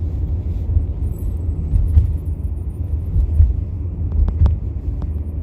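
Steady low rumble of a 2003 New Flyer D40LF diesel city bus under way, heard from inside the cabin, with a few brief clicks from the body.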